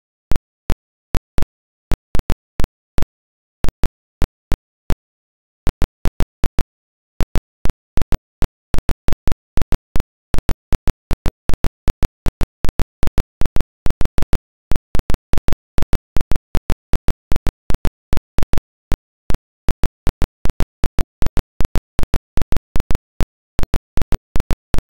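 Sharp clicks and pops at irregular intervals, a few a second, on an otherwise silent track, with a silent gap of about two seconds near the start; no engine sound is heard.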